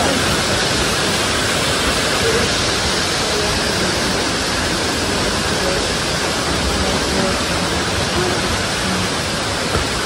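Waterfall's falling water rushing steadily, an even unbroken noise.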